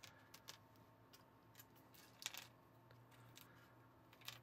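Sparse, faint clicks of small plastic LEGO pieces being picked up, handled and set down on a tabletop, with the sharpest click a little over two seconds in, over a quiet room hum.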